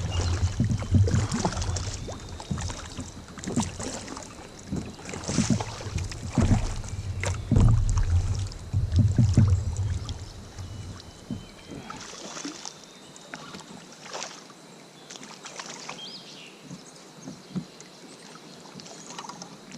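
Wind buffeting the microphone on a kayak, dropping away about twelve seconds in, with scattered splashes and knocks as a hooked smallmouth bass is played.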